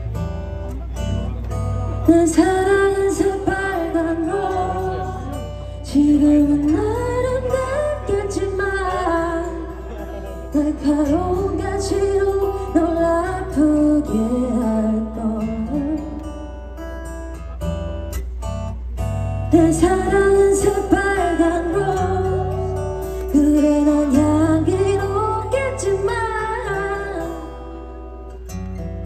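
A female singer performing a song live with a band over a PA, recorded from the audience. She sings in phrases with short breaks over a steady deep bass and guitar accompaniment.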